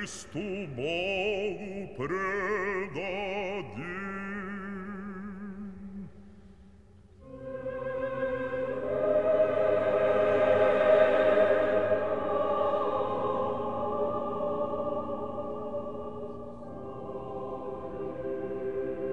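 Orthodox church chant: a solo male voice sings a melismatic, wavering line for about six seconds, then after a brief lull a choir comes in with sustained chords that swell to a peak and slowly ease off.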